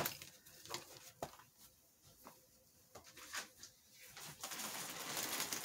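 Packaging being handled: a few light taps and rustles, then plastic packaging crinkling steadily over the last second or so.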